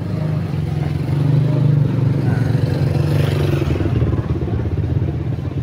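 A motor vehicle engine running steadily close by. It grows louder about a second in and eases off a little near the end.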